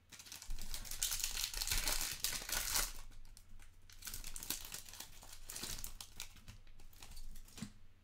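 Foil wrapper of a Select Soccer trading-card pack crinkling and tearing as it is pulled open by hand, in two spells of dense crackling, the first starting about half a second in and the second about four seconds in.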